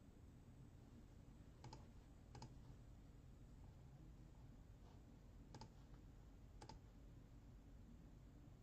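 Near silence with four faint, sharp clicks in two pairs, the first pair under a second apart and the second pair about a second apart, over a low steady room hum.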